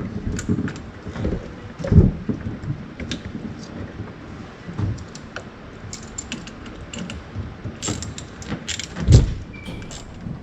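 Scattered metallic clicks and clinks of hand work on the car while the battery is being connected, with two heavier thumps, about two seconds in and near the end. No engine is running.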